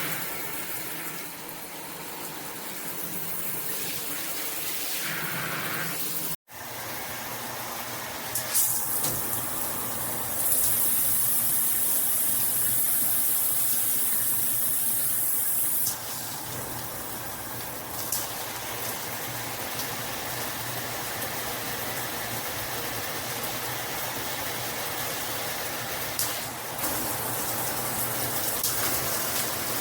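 Handheld shower head spraying water in a steady hiss, with a louder, brighter spray from about ten to sixteen seconds in.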